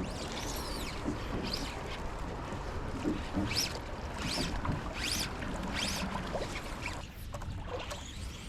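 Steady rushing of river water and wind around a small fishing boat, with a series of short high rising-and-falling sounds, about one a second, in the middle.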